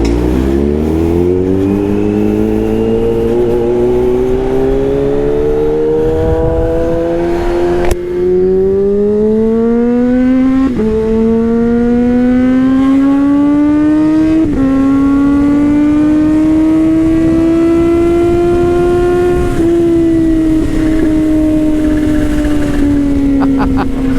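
Kawasaki Z H2's supercharged inline-four with an aftermarket Orion exhaust, accelerating hard: the engine note climbs through the revs and drops sharply at each of four upshifts, then holds and eases off slightly near the end. Loud pipe note.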